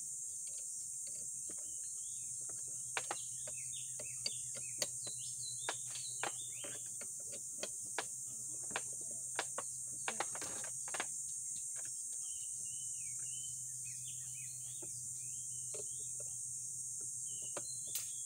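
Irregular sharp metallic clicks and knocks from a hand tool working on a motorcycle's front end, mostly between about 3 and 11 seconds in. Under them, a steady high insect drone and scattered bird chirps.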